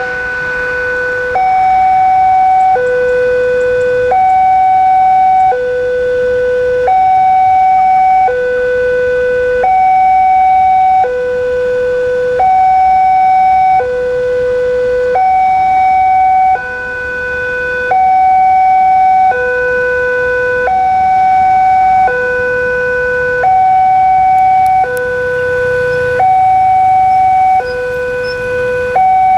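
Indonesian railway level-crossing warning siren sounding its two-tone alarm, switching between a higher and a lower note about every one and a half seconds. It is the signal that a train is coming and the crossing barriers are down.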